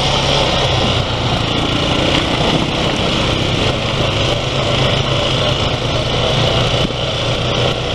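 ATV engine running steadily as the four-wheeler rides along a dirt trail, under a continuous rushing noise of the ride.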